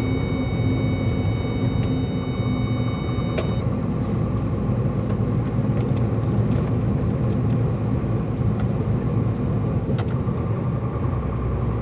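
Semi-truck's diesel engine running steadily with road noise, heard from inside the cab. A faint high steady whine sounds over it and stops about three and a half seconds in.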